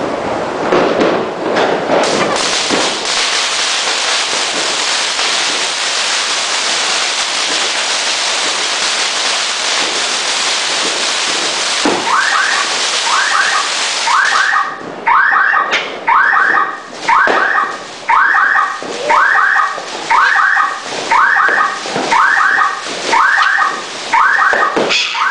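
Fireworks fizzing and crackling in a dense hiss. About halfway through, a loud pulsed tone starts and repeats evenly, about three times every two seconds.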